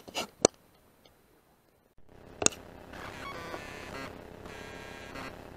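Two sharp air-rifle shots, one about half a second in and another about two and a half seconds in, with near silence between them. After the second shot a steady background hum with faint tones sets in.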